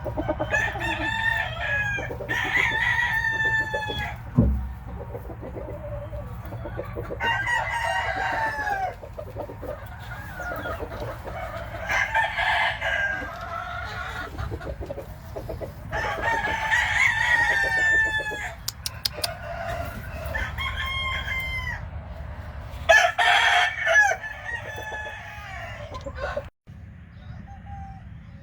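Game-fowl roosters crowing again and again, about seven crows one after another, some overlapping, with clucking between them. The sound cuts out briefly near the end.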